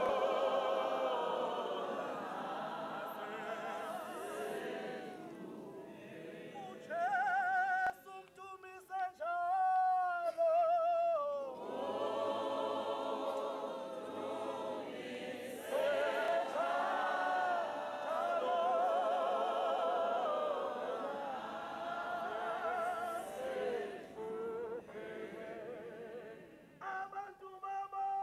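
Women's choir singing a hymn without instruments, many voices with a wavering vibrato. From about seven to eleven seconds in, only one or two voices carry the line before the full group comes back in.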